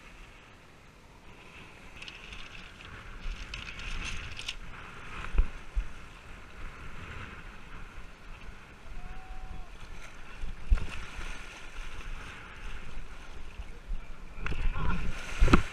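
Wind rushing over an action camera's microphone, with water splashing in choppy shallow surf; the rush picks up about two seconds in. A few sharp knocks stand out, the loudest near the end.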